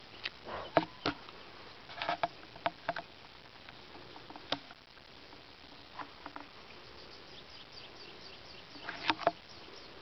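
Insects chirping and buzzing over a soft steady hiss, with a run of short, high, repeated chirps near the end. Scattered sharp clicks and knocks come through, the loudest about a second in and again shortly before the end.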